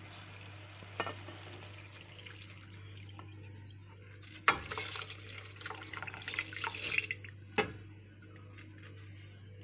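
Potatoes bubbling in simmering sauce, then water and soaked basmati rice poured in from a bowl with a rushing splash from about four and a half seconds in. Two sharp knocks come at the start and end of the pour.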